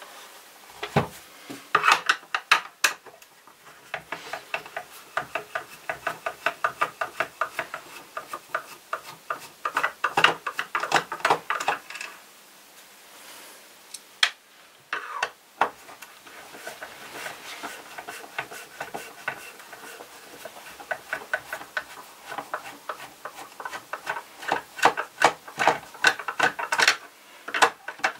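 A screwdriver working screws in the plastic housing of a Vorwerk VR100 robot vacuum makes long runs of rapid clicking and creaking. About halfway through there is a short pause and a few knocks as the vacuum is turned round.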